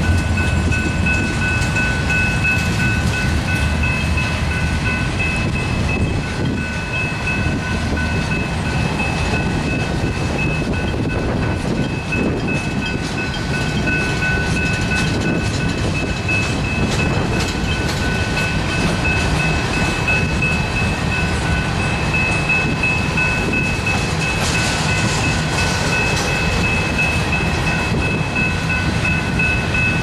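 Freight train cars (flatcars, tank cars and boxcars) rolling past, with a loud steady rumble and the clatter of wheels on the rails, and a steady high ringing tone over the top.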